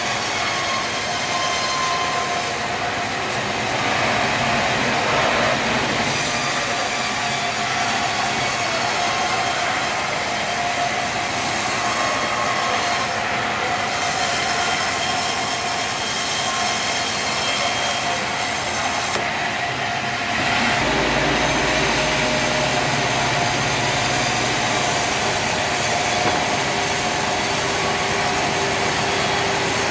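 Sawmill machinery running, a saw cutting through a log: a steady, loud noise with thin whining tones that drift slightly in pitch. About two-thirds of the way through, a deep low hum from a motor joins in.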